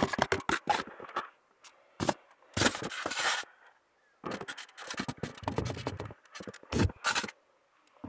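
Irregular scraping and rustling with light knocks as small plastic containers and cardboard are handled and moved about, in short uneven bursts with brief pauses.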